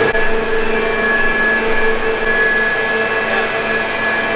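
Flood-drainage pump station machinery running steadily, a constant motor whine with a lower hum beneath it.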